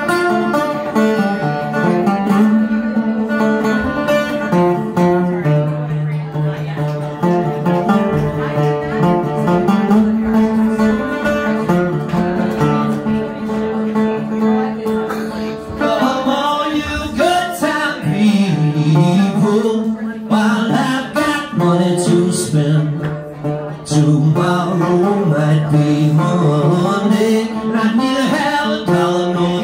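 Live acoustic roots band playing: a resonator guitar and other plucked strings over a steady moving bass line. The playing gets busier and brighter about halfway through.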